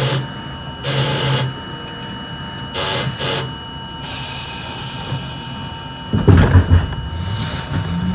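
New York City subway train standing at an elevated platform. It gives short bursts of mechanical noise and a hiss of air about 4 seconds in, then a loud cluster of heavy clunks about 6 seconds in. Near the end the traction motors start a rising whine as the train begins to pull out.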